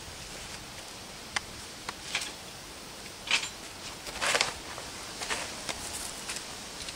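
Handling noise: a scatter of light clicks and short rustles, with the longest rustle a little past the middle, over a quiet background.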